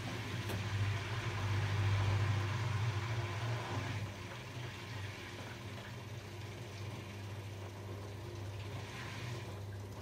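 Arçelik 8120 PMG front-loading washing machine in its rinse cycle: the drum motor hums steadily while the wet laundry tumbles and water sloshes in the drum. It is louder for the first few seconds, then quieter and even, and falls away at the very end.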